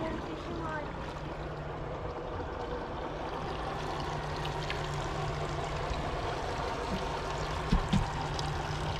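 Water lapping and splashing against the stern and outboard lower units of a fishing boat sitting on calm sea, over a steady low hum. A couple of short knocks near the end.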